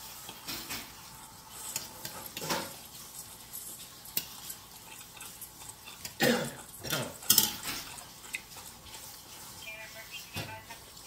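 Someone eating duck by hand close to the microphone: chewing and crunching, with irregular crackles and a few louder knocks about six to seven seconds in.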